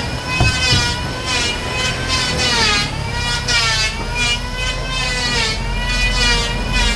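An electric woodworking power tool running and cutting wood, its motor whine dipping in pitch and recovering roughly once a second as it takes load.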